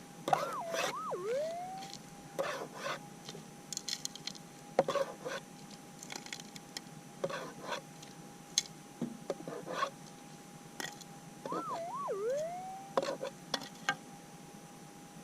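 Minelab GPX 6000 metal detector's steady threshold tone, with two warbling target signals that swoop up and down in pitch, one about a second in and another around twelve seconds. This is a loud 'screamer' response from a small, flat gold nugget held in a broken-out piece of rock. Light clicks and scrapes from handling the rock.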